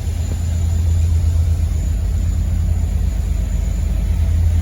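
Steady low rumble that does not rise or fall, with a faint light click about a third of a second in.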